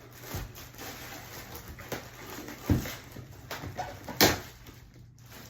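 A mini fridge being worked out of its cardboard box and packaging: scraping and rustling, with two sharp knocks, the second the louder, about a second and a half apart midway through.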